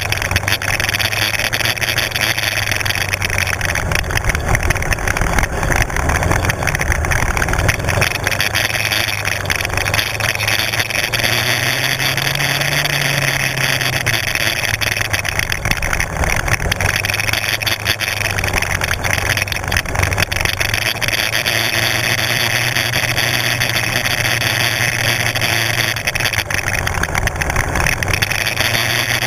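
Kymco 250 sport quad's engine running steadily at low speed along a rough grass track, its note rising briefly about twelve seconds in and then settling, with frequent small knocks throughout.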